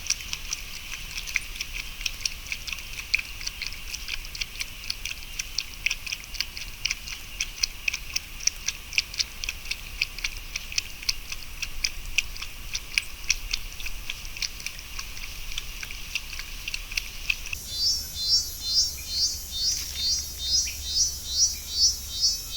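Chorus of calling insects, crickets or katydids, a dense stream of fast high chirps. About three-quarters of the way through it switches abruptly to a different high call that pulses about twice a second.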